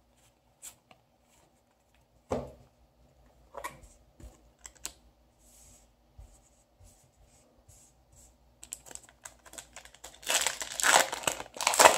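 Trading cards handled and set down with a few soft taps and clicks. Then, about ten seconds in, a foil Yu-Gi-Oh! booster pack wrapper is torn open with loud crinkling, the loudest sound here.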